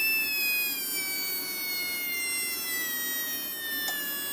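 Small 6-ohm Mabuchi can motor of a slot car running unloaded, its high whine falling slowly in pitch as its supply voltage is turned down from about 16 to under 10 volts.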